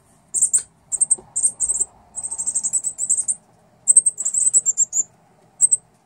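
Fledgling northern cardinals calling: runs of rapid, very high, thin chip notes, repeated several times, the longest run lasting about a second, typical of young birds begging for food.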